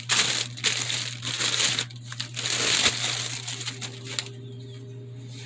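Packaging crinkling and rustling as a new tool is unwrapped from its box, busy for the first three seconds and then dying away.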